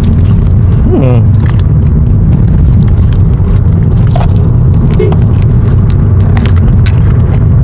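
Steady low rumble of road and engine noise inside a moving car's cabin, with a few faint clicks scattered through it.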